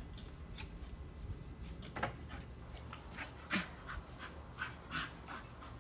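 A dog giving faint whimpers and short, scattered yips and huffs as it jumps and snaps at soap bubbles. The sounds are strung out from about two seconds in.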